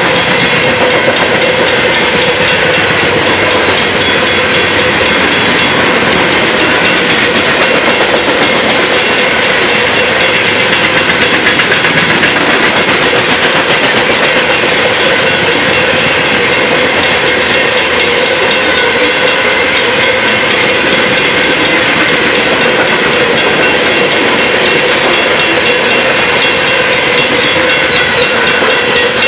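Freight train cars rolling past a grade crossing: a steady, loud rumble and clatter of steel wheels on the rails.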